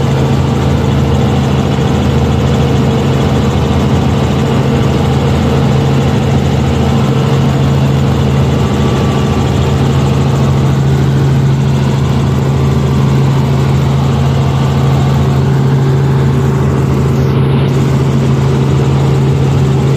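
Light helicopter's engine and rotor noise heard from inside the cabin in flight: a loud, steady low drone with constant hum tones over a rushing noise.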